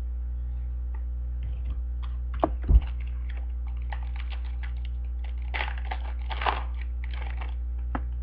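Sports trading cards and foil pack wrappers being handled: scattered clicks and crinkly rustles, with a low thump a little under three seconds in. A steady electrical hum runs underneath.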